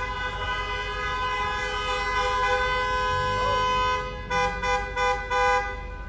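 Car horns honking in backed-up, stalled traffic. A long horn blast is held for about four seconds, then four short, sharp honks follow in quick succession.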